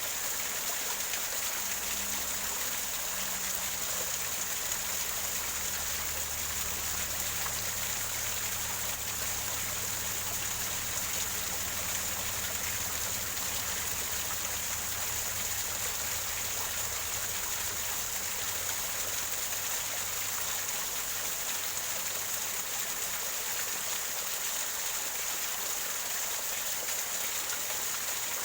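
Waterfall over rocks, the water gurgling and splashing in a steady rush.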